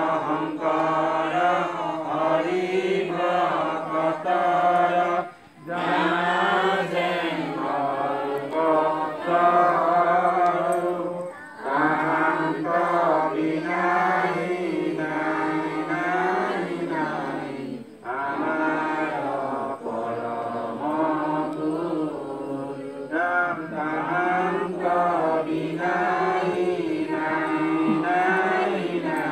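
A group of voices chanting a devotional prayer together in long, drawn-out sung phrases, each about six seconds long with a brief breath gap between them.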